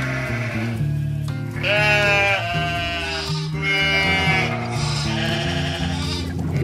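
Cartoon sheep bleating several times over steady background music.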